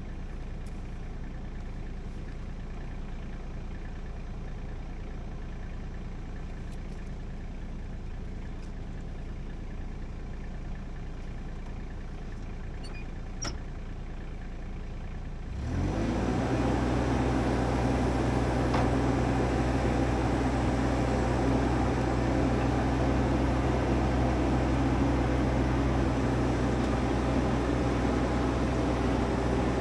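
An engine idling steadily. About fifteen seconds in it is throttled up and runs on at a higher, louder steady speed.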